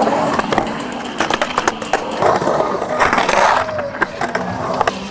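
Skateboard wheels rolling and carving on a concrete bowl, with sharp clacks from the board and trucks, and a louder scrape about three seconds in as the trucks grind the pool coping.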